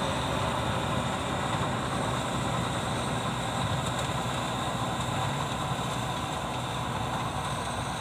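Combine harvester's engine and machinery running steadily as it cuts rice, a constant low hum and rumble.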